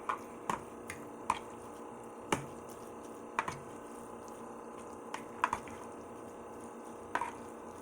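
A metal fork stirring wet ramen noodles in a bowl: about eight short, irregular clinks of the fork against the bowl over a faint steady hum.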